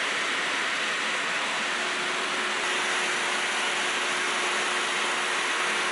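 Shop vac running steadily, its air blowing into an inflatable vinyl pool to inflate it: an even rushing noise with a constant hum.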